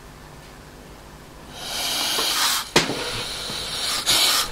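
Compressed air hissing as it is let into a large model stationary steam engine run on air, starting about one and a half seconds in, with a sharp click a second later and a second strong hiss near the end.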